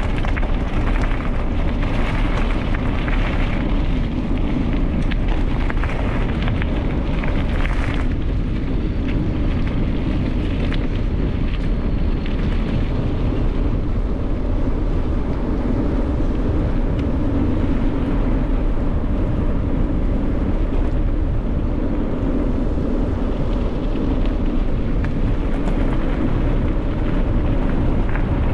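Wind buffeting the camera microphone and bicycle tyres rumbling over a gravel road on a downhill run, a steady loud rush. It is rattly and scratchy for the first eight seconds or so, then smoother.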